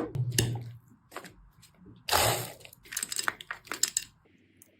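Sharp clicks and knocks, then a short noisy rush about two seconds in, followed by a quick rattling clatter that stops about four seconds in.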